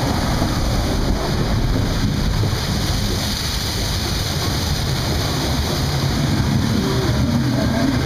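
Churning rapids water rushing and splashing around a round river raft: a steady wash of noise with a deep rumble underneath.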